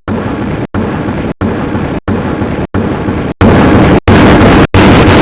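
A wheeze sound clip looped over and over, about one and a half repeats a second with short gaps between, amplified until it is harsh distorted noise; it jumps louder about three and a half seconds in.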